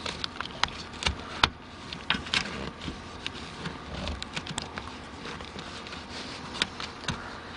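Hands pushing and pulling a pickup's molded rear-cab carpet panel back on over its plastic lips: irregular rustling and scraping with scattered sharp clicks and taps, the loudest about one and a half seconds in.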